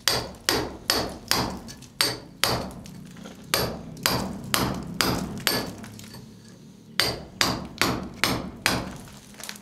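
Hammer blows struck at a steady pace of about two a second, each a sharp knock with a brief bright ring. The blows pause for about a second and a half just past the middle, then resume.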